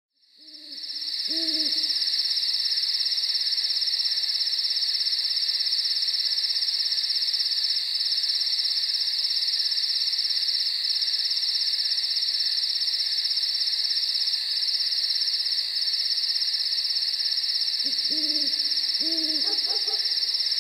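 Dusk ambience of a steady, high-pitched insect chorus that fades in over the first couple of seconds. An owl hoots a few times just after it starts, then again in a run of hoots near the end.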